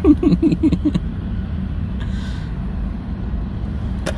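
A man laughing in quick short chuckles for about a second, then the steady low rumble of a car's cabin while it runs, with a single sharp click near the end.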